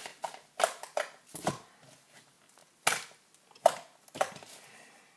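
Homemade slime being squeezed and kneaded by hand, giving a run of short squishes and pops at irregular intervals.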